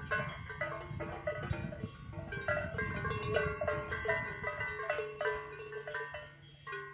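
Cowbells on grazing livestock clanking irregularly, several bells at different pitches ringing and overlapping.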